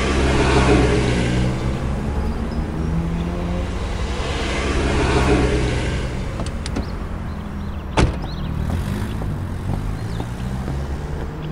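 Vehicle engine idling steadily, with cars passing twice, and a single sharp car-door slam about eight seconds in.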